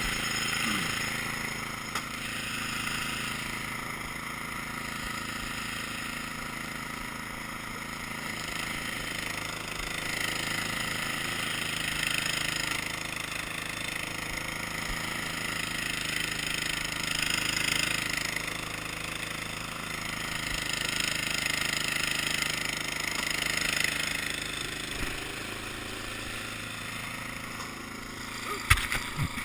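Cub Cadet's small engine running steadily, with a hiss over it that swells and fades every few seconds. A few loud sharp knocks come just before the end.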